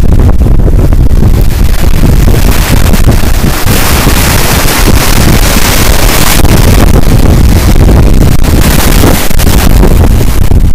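Strong wind buffeting the microphone in a loud, continuous low rumble, over wind-driven lake waves rushing and splashing past a wooden dock. A hissier surge comes about four seconds in and lasts a couple of seconds.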